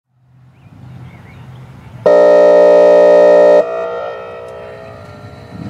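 Whelen Vortex R4 outdoor warning siren sounding one blast of its air horn signal: a loud, steady, foghorn-like chord that starts abruptly about two seconds in, holds for about a second and a half, then cuts off and echoes away.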